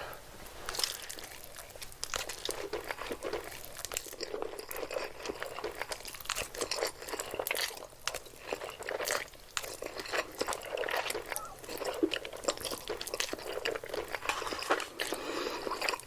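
Close-miked eating: someone biting and chewing crunchy food, with dense, irregular crackling crunches.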